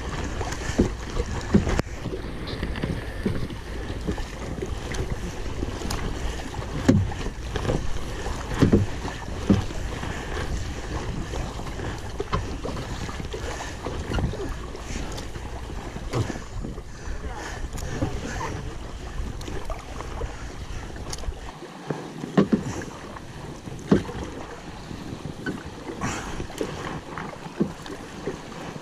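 Kayak paddling on a fast river: paddle blades splashing and knocking in irregular strokes over steady rushing water. Wind rumbles on the microphone and eases off about 21 seconds in.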